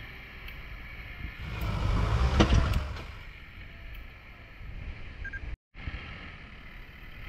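Heavy earthmoving machine's diesel engine running with a steady low rumble. It swells into a louder, noisy surge about two seconds in, with a few sharp knocks, then settles back. The sound cuts out for an instant about five and a half seconds in.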